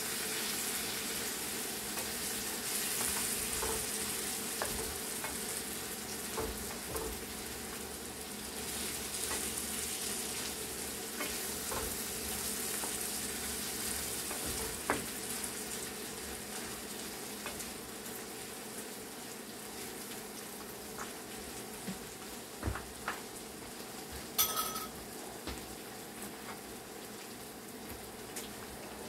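Chicken sizzling as it fries in a pan of oil, with the small clicks and scrapes of a utensil stirring it. A short metallic scrape rings out near the end.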